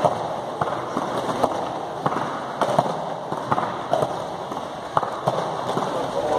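Rapid rower-style sit-ups on foam floor mats: a run of sharp knocks and slaps, roughly two a second, as the body, arms and heels strike the mat with each repetition, over a steady noisy background.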